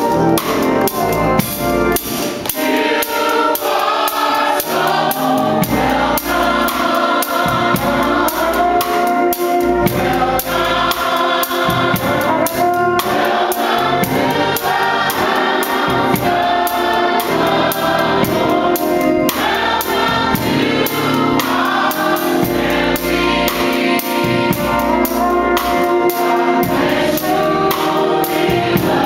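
Gospel choir singing, with keyboard accompaniment and a steady beat.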